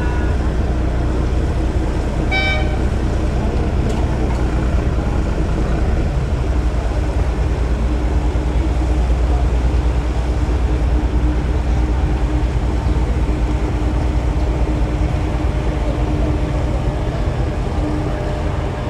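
Steady low rumble of a running engine, with a short horn toot about two and a half seconds in.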